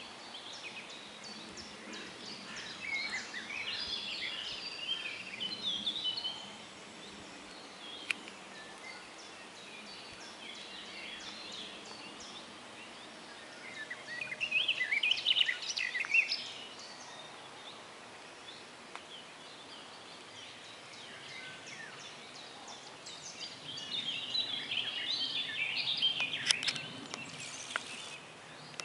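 Songbird song in three bouts of quick, varied high notes, each a few seconds long and about ten seconds apart, over a steady outdoor hiss.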